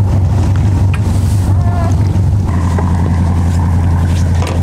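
A sailing yacht's inboard engine running steadily under way, a deep, even drone.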